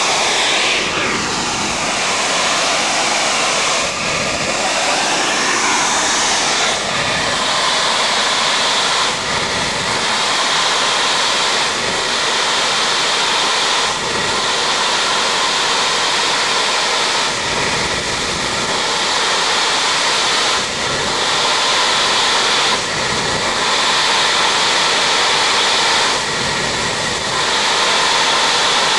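Crude oil escaping as gas under pressure from a leak in a buried oil pipeline: a loud, steady hissing rush.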